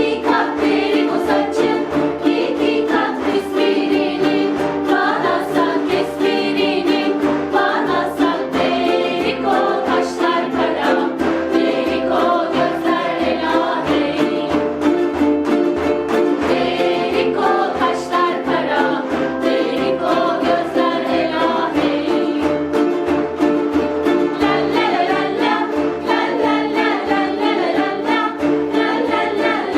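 Ukuleles strummed in a steady rhythm, accompanying a group singing a cheerful children's song together.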